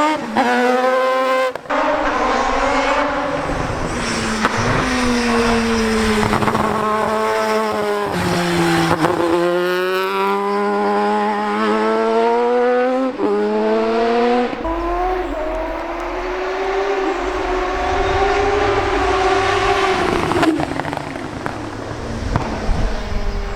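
Crighton CR700W race bike's twin-rotor Wankel rotary engine revving hard under load. Its pitch climbs steeply, drops suddenly at gear changes several times, and falls away in places as the throttle is eased.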